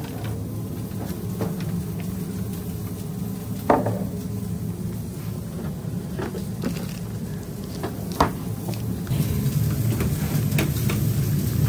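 Commercial kitchen sounds: a steady low hum of kitchen equipment under occasional knocks and clatters of stainless steel drawers and utensils, the sharpest about four seconds in and again about eight seconds in. The hum grows louder near the end.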